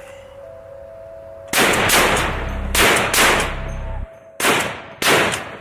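A semi-automatic .50 BMG rifle fired several times in quick succession, each heavy report followed by a long echoing tail. The shots start about a second and a half in, with the last two near the end.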